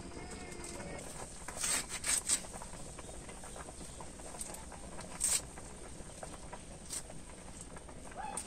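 Low background hiss with a few short knocks or clicks: a cluster about two seconds in, one louder knock about five seconds in, and a lighter one about seven seconds in.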